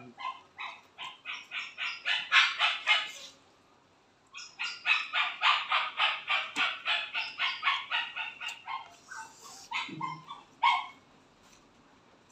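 An animal calling in two long runs of rapid, evenly spaced chirps, about five a second, the first lasting about three seconds and the second about four. A few scattered calls follow just after ten seconds.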